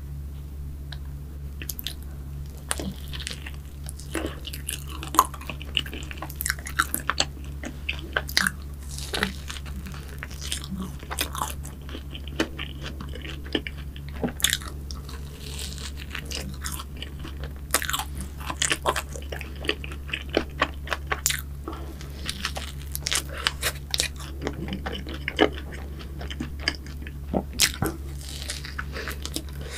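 Close-up biting and chewing of a crisp, berry-coated croffle: many sharp crunches and crackles with chewing between them, over a steady low hum.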